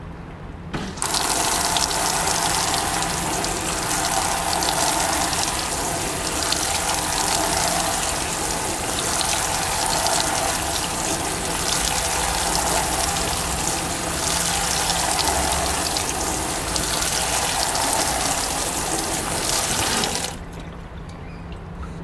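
Water spraying from the inlet into the tub of a Fisher & Paykel Washsmart top-loading washing machine, a loud steady rush that starts about a second in and cuts off near the end. A steady low hum runs underneath throughout.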